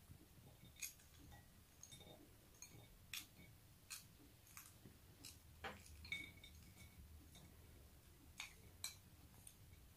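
Faint, scattered clinks and taps of a plastic spoon against a small glass bowl as sweet corn is spooned out of it into a ceramic bowl.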